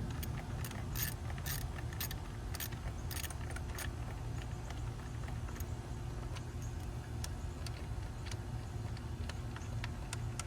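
Scattered light metallic clicks and clinks of hand tools and parts being handled while parts are taken off a truck engine, more frequent in the first few seconds, over a steady low hum.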